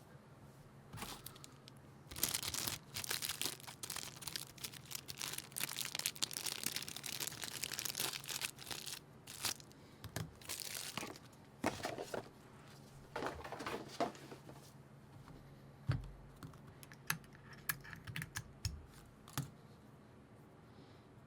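Packaging being unwrapped and handled: several seconds of dense crinkling and tearing, then scattered rustles and light knocks. A faint steady low hum runs underneath.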